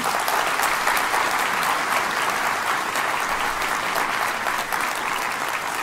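Audience applauding: many hands clapping, a dense steady patter from the start.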